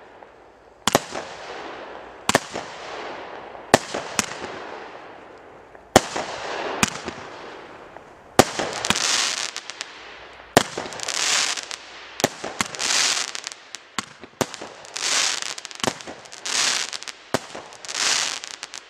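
Weco Startrooper 30-shot fireworks battery firing: sharp bangs every second or two, each trailing off in a hiss. From about eight seconds in, each bang is followed by about a second of crackling, the battery's crackling finale.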